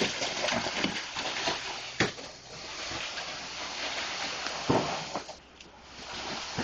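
Wet concrete rushing steadily out of a pump hose into a steel wheelbarrow, broken by two sharp knocks, one about two seconds in and one near five seconds in.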